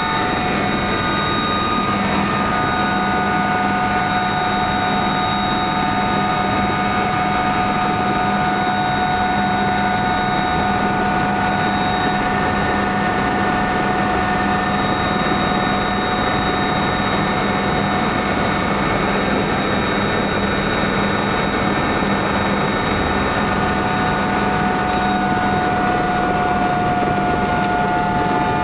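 Helicopter turbine engine and rotor running steadily while the helicopter sits on the pad before lift-off, heard from inside the cabin: a constant whine of several high tones over a dense rushing noise.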